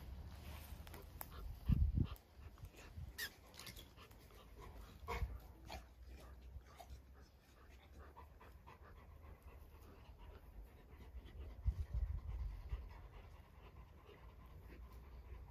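A dog panting, with a few faint whimpers and scattered light clicks. There are two low thuds, about two seconds in and again about twelve seconds in.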